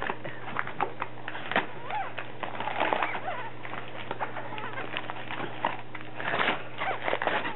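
Wrapping paper crinkling and tearing in quick, irregular crackles as dogs rip open presents.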